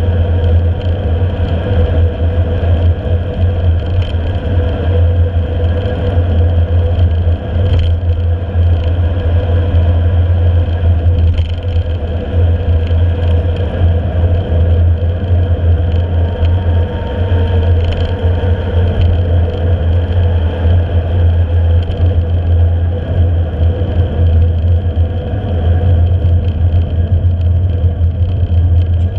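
Steady wind rumble on a handlebar-mounted camera's microphone, with mountain-bike tyres rolling fast on asphalt. A few faint knocks from bumps in the road.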